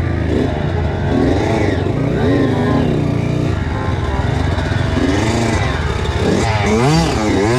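Kawasaki KX85 two-stroke dirt bike engine revving over and over, its pitch rising and falling with each twist of the throttle, the rises coming quicker near the end.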